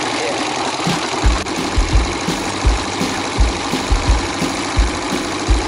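Harley-Davidson Sportster's air-cooled V-twin engine running while the bike is ridden. From about a second in, background music with a steady, thumping beat plays over it.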